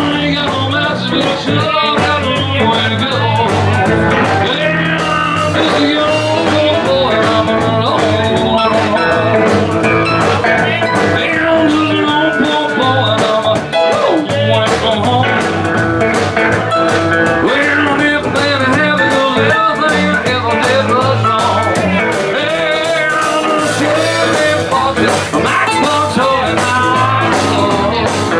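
Country-rockabilly band music: singing over guitar with a steady dance beat.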